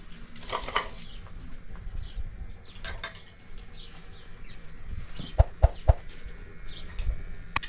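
Spoons clinking and scraping on plates during a meal, with three sharp clinks close together a little after five seconds in. Short bird calls sound in the background.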